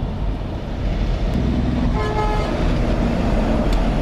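Traffic outdoors: a car-carrier semi-truck passing, with steady low engine and road rumble. A horn toots once, briefly, about two seconds in.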